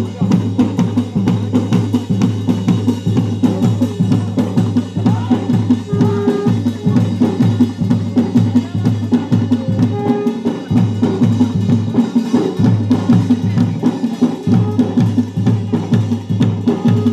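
Garhwali jagar drums playing a fast, steady beat, the ritual drumming that drives the dance.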